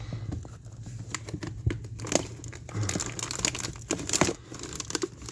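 Packaging crinkling and rustling, with irregular clicks and knocks, as fireworks are handled and pulled out of a box.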